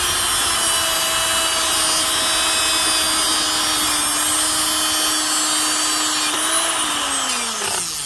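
Handheld grinder with a small metal cut-off wheel slicing through a metal RC boat flex cable held in a vise: a steady high whine over the rasp of the cut. Near the end the pitch rises briefly as the wheel cuts through, then the motor winds down.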